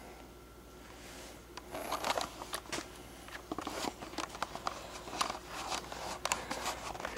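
Handling noise: faint at first, then from about one and a half seconds in a run of irregular clicks, taps and rustles.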